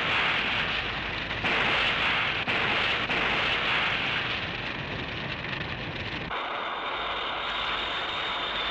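Explosion sound effects for a fighter jet caught in a fireball: a loud, dense rumbling roar with crackle. About six seconds in it cuts abruptly to a quieter, steady rushing noise.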